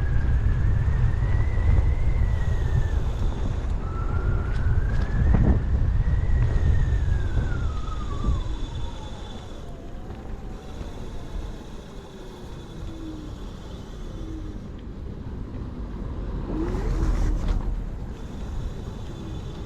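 Kaabo Mantis electric scooter's dual hub motors whining, the pitch rising as it speeds up and falling as it slows, twice, over heavy wind rumble on the microphone. Both the whine and the wind die down after about eight seconds.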